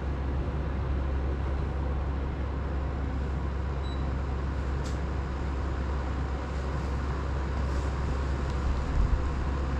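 Desk circulator fan running, a steady rush of air with a strong low rumble on the microphone. A faint click comes about five seconds in and a soft low thump near the end.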